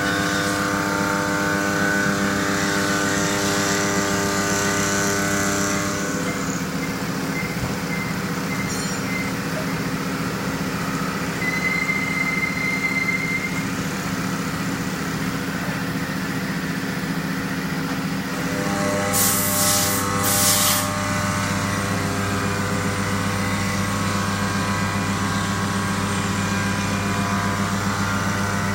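2002 Fryer MC 30 vertical machining center running, a steady machine hum made of several tones that shift in pitch about six seconds in and again a little before twenty seconds. A brief higher tone sounds near the middle, and two short hisses come just after the second shift.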